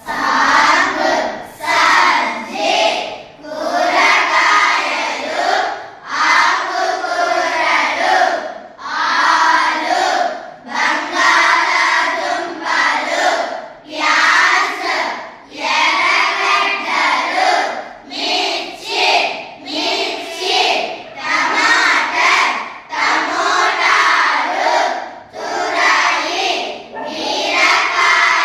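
A group of children reciting words aloud together in a steady rhythm, one short phrase every second or two.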